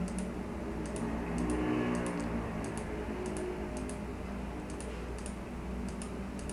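Computer mouse right-button clicking repeatedly, about two clicks a second, often in quick pairs, over a faint steady low hum.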